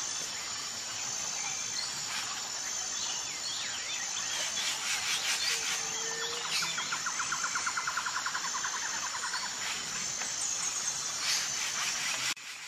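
Tropical forest ambience: a dense chorus of insects with repeated high, steady trills and scattered bird chirps, a fast pulsing trill rising in the middle. The sound changes abruptly near the end.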